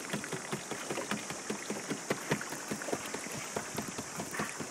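Choppy water lapping and splashing against the hull of a small boat, a dense patter of little splashes over a steady hiss.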